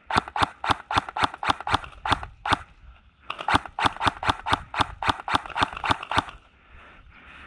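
Kingarms PDW airsoft electric gun with a Titan electronic trigger, fired in rapid single shots at about four a second. There are two strings of about a dozen shots each, with a short pause between them.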